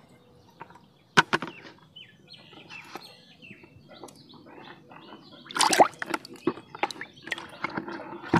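Scattered knocks, scrapes and rustles as a hand reaches into a red plastic bucket to take out a caught snakehead fish, with a sharp knock about a second in and a louder burst of noise a little past halfway.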